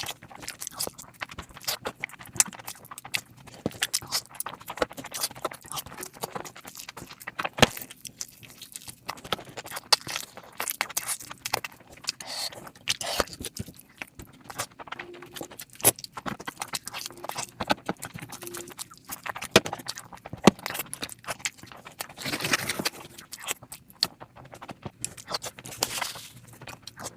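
Close-miked eating sounds: a person chewing mouthfuls of curry and rice, with many irregular wet lip smacks and clicks.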